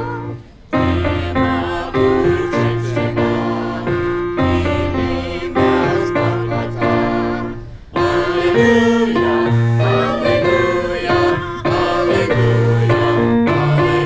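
A small group of men and women singing a hymn together, with low sustained accompanying notes underneath. The singing breaks off briefly between phrases about half a second in and again near eight seconds.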